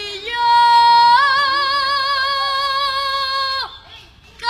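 A boy singing a cappella, holding one long high note with vibrato for about three seconds; its pitch steps up about a second in, and the note breaks off well before the next phrase.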